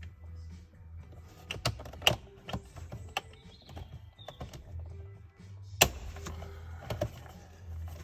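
Plastic wiring connectors and trim behind a van's steering column being worked by hand, with sharp clicks and knocks, the loudest about two seconds in and near six seconds, as a stubborn CAN bus plug is prised free.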